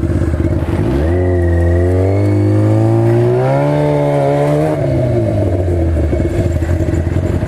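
Sport motorcycle engine pulling away. Its pitch climbs for about three and a half seconds, then falls back and settles into a steady low run.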